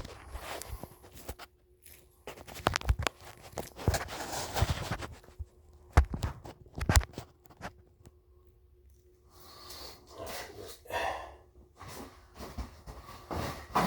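Hand-handling noises of plumbing parts and tools: a series of sharp clicks and knocks as things are picked up and set down on a hard surface, then rustling and scraping near the end.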